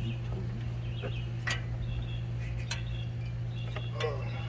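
A few sharp clicks and clinks of hands working a spark plug wire and boot in the engine bay, over a steady low hum.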